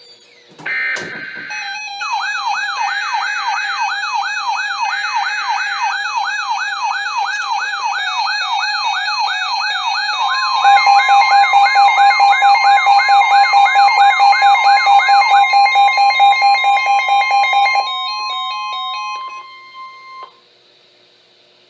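Emergency alert broadcast tones on NOAA Weather Radio for a flash flood warning: three short screeching bursts of digital header data, then a warbling siren-like alarm sweeping up and down about two and a half times a second. About halfway through, the steady single-pitch 1050 Hz weather radio alert tone joins it and sounds for about ten seconds, outlasting the warble.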